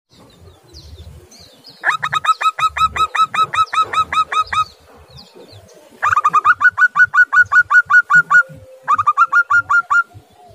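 Zebra dove (perkutut) calling: three rapid runs of short, clipped cooing notes, about six or seven a second. The first run lasts nearly three seconds, a second long run follows after a short pause, and a shorter run comes near the end.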